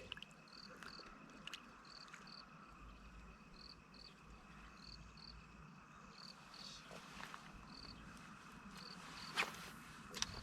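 Crickets or similar autumn insects chirping: short high double chirps about once a second over a steady high trill. A sharp click comes about nine seconds in.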